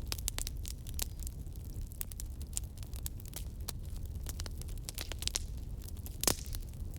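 Campfire burning steadily, with irregular crackles and snaps of burning wood over a low rumble of flames, one louder pop about six seconds in.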